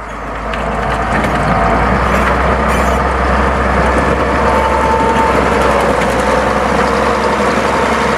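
Heavy vehicle engine running steadily with a deep hum, swelling in over the first second.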